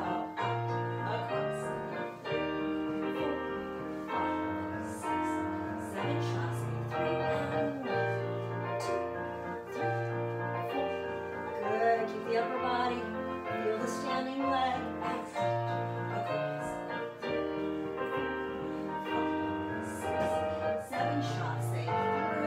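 Piano music with a steady beat, played as accompaniment for a ballet class exercise.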